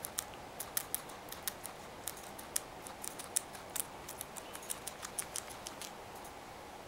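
Guinea pig chewing sweet potato leaves: quick, irregular crisp clicks of its teeth cutting through leaves and stems, several a second.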